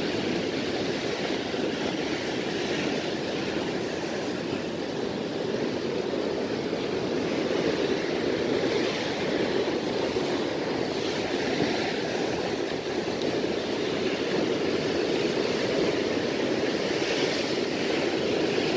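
Sea surf washing and churning against rocks below, a steady rushing noise that swells and eases a little without breaking off.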